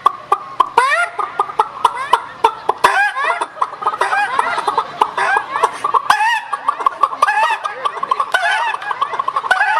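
A man imitating a chicken's clucking into a microphone: a rapid, unbroken run of short clucks, broken by a few longer calls that sweep upward.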